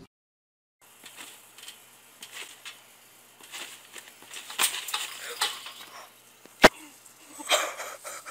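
Trampoline springs and frame rattling as someone bounces on it, after a brief silence at the start, with one loud sharp knock about two-thirds of the way through.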